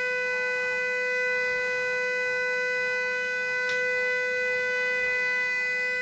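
CNC router spindle running at a steady high speed with a constant high-pitched whine while a small bit engraves a panel; a faint tick is heard a little past halfway.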